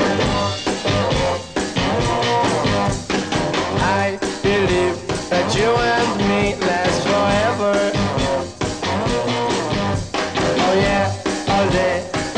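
Rock music with electric guitar and drums playing at a steady beat.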